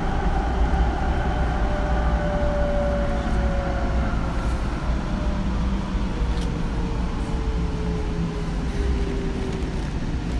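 Sound Transit Link light rail train running, heard from inside the passenger car: a steady low rumble, with a faint whine that slowly falls in pitch.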